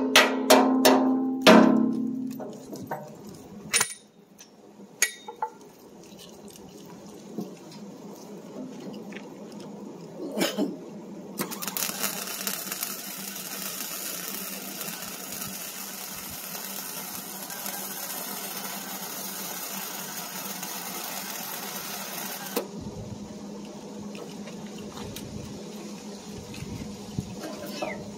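Hammer blows ringing on steel a few times in the first two seconds, followed by scattered knocks. From about eleven seconds in, a steady hiss runs for roughly eleven seconds and cuts off suddenly.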